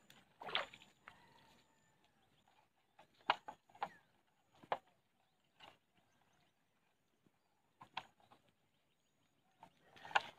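Footsteps on a wet, muddy dirt road: short wet steps at an uneven pace, roughly one a second.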